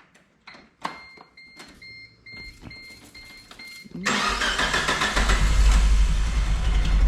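Geo Tracker engine being started: after a few faint clicks, it comes in suddenly and loudly about four seconds in and keeps running, with a heavy low rumble. Its distributor has just been reinstalled, and the ignition timing is suspected to be a tooth off.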